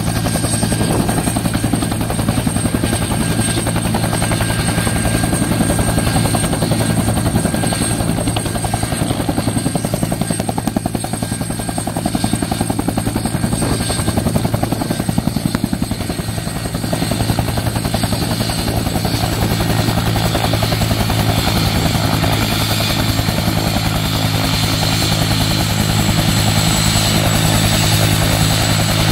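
Bell Huey-type military helicopter running on the ground with its main rotor turning: a loud, steady rotor beat over a thin, steady high turbine whine.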